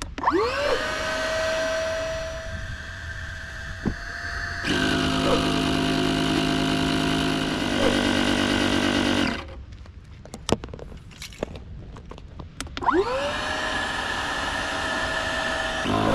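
Cordless electric SUP/kayak air pump inflating a drop-stitch kayak. Its motor starts with a rising whine that settles to a steady note, changes about 4.5 seconds in to a louder, rougher, lower-pitched sound, and stops about 9 seconds in; near 13 seconds it starts again with the same rising whine and changes again near the end.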